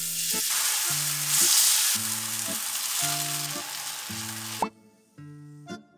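Enoki mushrooms sizzling as they fry in olive oil on a flat griddle pan. The sizzle cuts off suddenly about four and a half seconds in. Light background music with repeating low notes plays underneath.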